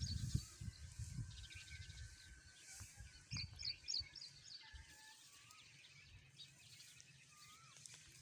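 Small birds chirping in the open, with a quick run of high chirps about three seconds in and a few thin whistles later, over faint low rumbling that fades out in the first few seconds.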